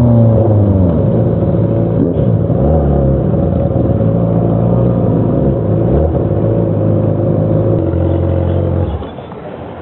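Vehicle engine through a loud exhaust, slowing as the revs fall in the first second, then running fairly steadily with small rises and dips in revs. About nine seconds in the engine sound stops and it goes much quieter.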